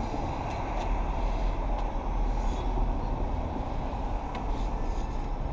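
Steady downtown street noise of city traffic, an even rumble heaviest in the low end with no single event standing out.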